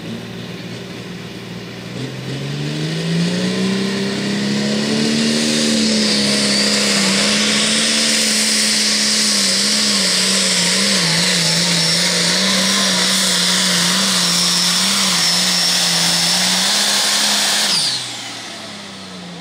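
Turbocharged diesel pulling tractor run at full throttle down the track. The engine climbs in pitch over the first few seconds and then holds, its pitch wavering as it loads down, with a faint high whistle riding above it. Near the end it is cut off abruptly.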